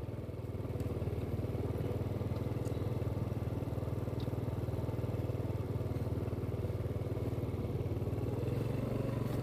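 Motorcycle engine running steadily at low speed while the bike is ridden slowly, heard from on board as a constant low hum.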